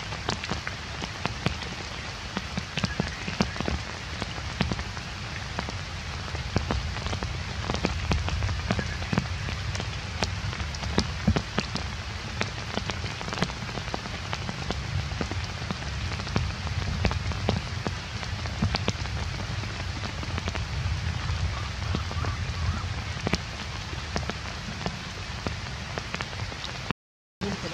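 Steady heavy rain falling on leaf litter and wet ground, a dense patter of drops over a continuous hiss. The sound cuts out briefly near the end.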